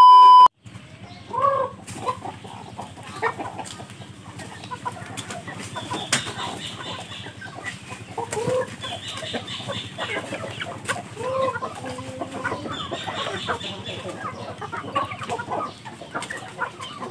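A loud steady test-tone beep lasting about half a second at the start, then a flock of chickens clucking with many short scattered calls as they gather to be fed.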